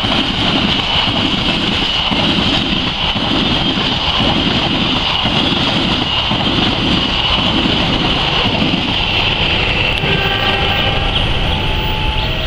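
Passenger train running past close by, its wheels clacking over the rails in a steady rhythm about one and a half times a second. Near the end the clacking stops and a series of short tones at different pitches begins.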